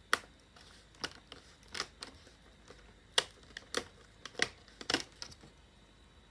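Irregular sharp clicks and taps of a laptop's screen parts being handled and pulled back, about eight over six seconds.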